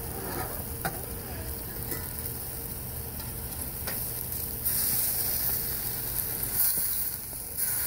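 Ground-beef burger patties sizzling on a charcoal grill's metal grate, with a few light clicks of a metal spatula. The sizzle grows louder about five seconds in, as a patty is flipped and its raw side meets the hot grate.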